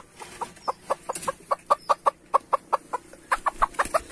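Broody hen clucking in rapid short clucks, about four or five a second, as she is disturbed and handled on her nest. The clucks come a little quicker and louder near the end.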